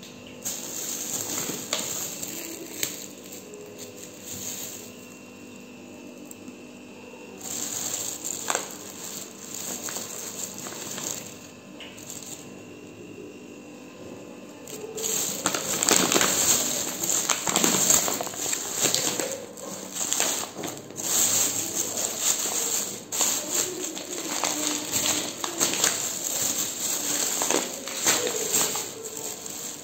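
Thin plastic shopping bag crinkling and rustling as it is handled and the grocery packets inside are shifted. It comes in short spells at first and grows louder and busier about halfway through.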